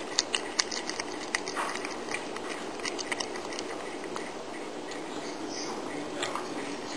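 Cat chewing meat up close: a quick run of wet, sharp clicks and smacks from its mouth, thickest in the first three seconds and sparser after.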